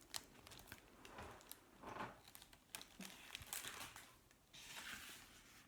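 Faint rustling and crinkling of paper being handled, with scattered small clicks.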